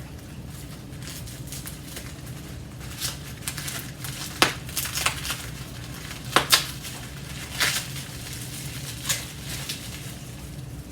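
Packing material rustling and crinkling as clock parts are unwrapped from the box, with scattered sharp crackles, over a steady low hum.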